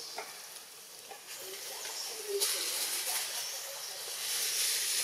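Outdoor forest background: a steady high hiss that grows louder about two and a half seconds in, with a few faint short chirps underneath.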